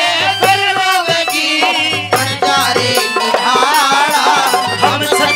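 Haryanvi ragni folk music played live: a wavering melody line over a steady drum beat and rattling percussion, an instrumental break between sung lines.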